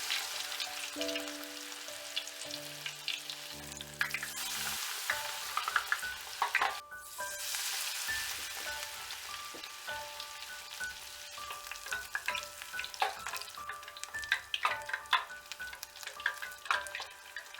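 Battered acacia flowers deep-frying in hot oil: a steady sizzle dotted with small crackles and pops. Soft background music plays over it.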